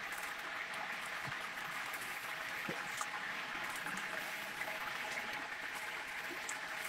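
Battered chicken deep-frying in hot oil: a steady sizzle of bubbling oil, with a few light clicks of metal tongs.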